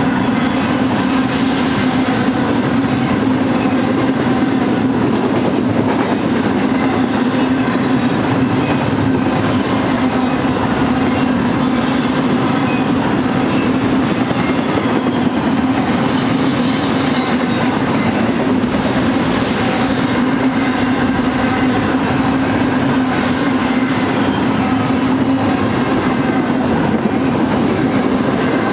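Double-stack intermodal freight cars rolling past: a loud, steady rumble of steel wheels on rail with a steady hum underneath.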